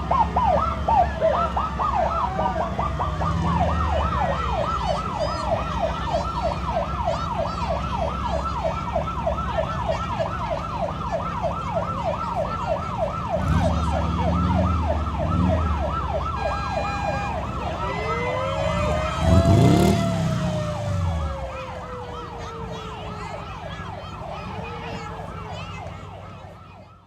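Emergency-vehicle siren on its fast yelp setting, warbling rapidly and steadily over the low rumble of a heavy vehicle's engine. About two-thirds through there is a louder swell, then the siren winds down, its tone sliding lower. The recording cuts off at the end.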